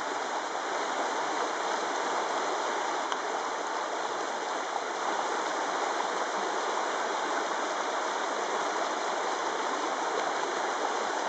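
Shallow rocky stream rushing steadily over and between boulders in broad riffles, an even, unbroken wash of water noise.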